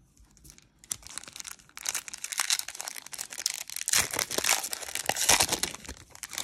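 A baseball card pack's wrapper being torn open and crinkled by hand as the stack of cards is pulled out. The crackling rustle starts faintly about a second in and grows louder from about two seconds, with a few sharper crackles.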